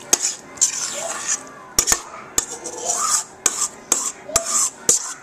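A spoon scraping and clinking against a glass baking dish as a thick, creamy chicken-and-vegetable filling is spooned in and pushed around, with a sharp clink every half second or so.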